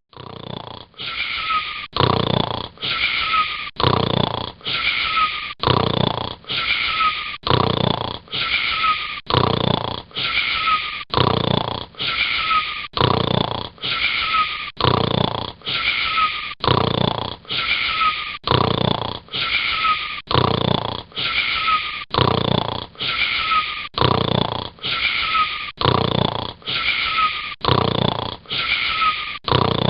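Wheezy snoring with a faint whistle on each breath, repeating in a fast, very even rhythm of about one snore a second.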